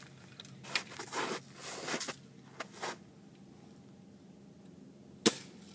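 BB gun being handled, with a few soft scrapes and rustles, then a single sharp snap about five seconds in as it fires.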